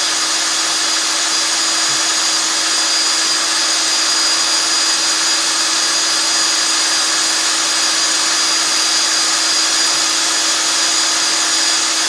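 Black & Decker electric drill running steadily at constant speed, spinning a billiard cue shaft in a homemade Lego lathe, with a steady whine over a motor hiss.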